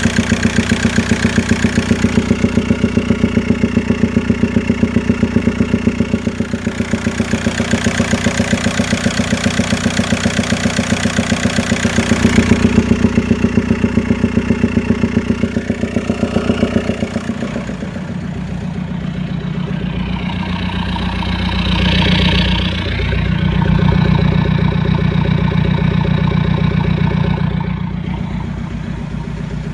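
VW Golf Mk4 1.9 TDI PD150 (ARL) four-cylinder diesel engine running at idle with a loud, rhythmic noise from the airbox area. The note changes about seventeen seconds in, and later swells in loudness twice. The engine is reported down on power, smoking, and blowing by heavily from the breather pipe and dipstick.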